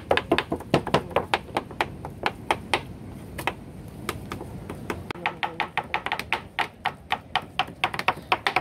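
Knives mincing raw tuna flesh on plastic cutting boards: a fast, steady run of sharp knife taps, several a second, getting denser in the second half as both knives chop at once.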